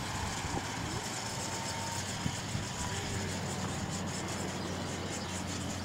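A steady low mechanical hum under a constant hiss, with a couple of small knocks a little past two seconds in.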